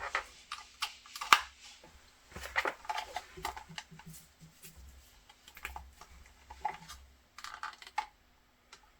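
Irregular small clicks and taps of plastic gadgets being handled: a phone and a charging cable plugged into the nail drill's power-bank base. The clicks come thick in the first half and thin out toward the end.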